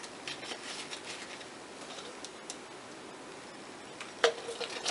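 Small plastic spray bottle of colorant being handled, giving faint clicks, then one sharp click with a short ring about four seconds in.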